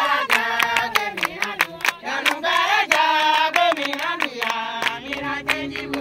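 A group of voices singing together over steady rhythmic hand clapping, about four claps a second.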